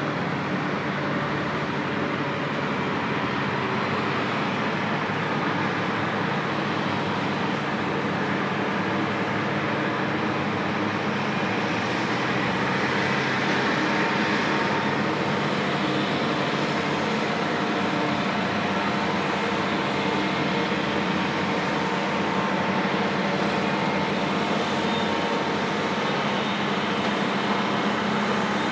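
Detroit Diesel 4-71 two-stroke engines of a Terex TS-14B twin-engine scraper running steadily, getting slightly louder about halfway through.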